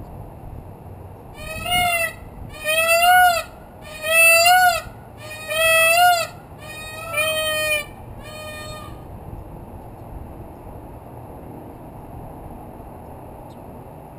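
Peacock calling: a series of six loud calls about a second and a half apart, each rising then dipping in pitch, the last one shorter and fainter.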